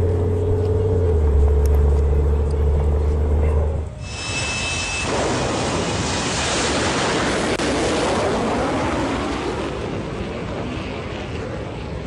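A car engine running at a steady low pitch, then, from a sudden cut about four seconds in, the loud, even rushing noise of a jet-powered school bus's jet engine running down a drag strip, easing off toward the end.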